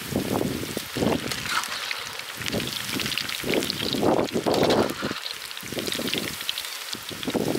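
Hot oil sizzling and crackling hard around batter-coated garfish pakoda pieces deep-frying in an aluminium pan, with a perforated steel skimmer stirring through the oil and a few duller scrapes against the pan.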